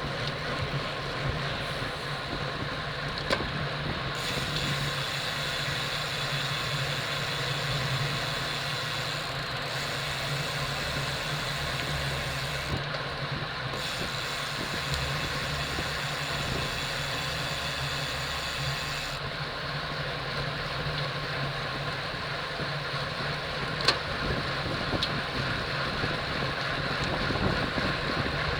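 Steady rush of wind and road noise from a racing bicycle ridden at race speed, heard through the rider's on-bike camera microphone, with two sharp clicks, one about three seconds in and one later on.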